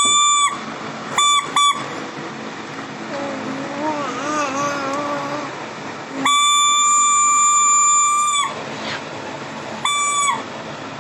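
A toy pungi, the snake charmer's pipe, blown in steady, buzzy blasts of a single high pitch: one short blast, two quick toots, a long blast of about two seconds, then a short one that dips in pitch as it ends. Between the blasts, a child's voice wavers up and down.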